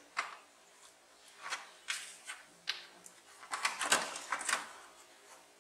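Plastic back cover of an LED TV being worked loose and lifted off, a scattered series of clicks, knocks and scrapes of plastic that bunch together and are loudest about four seconds in.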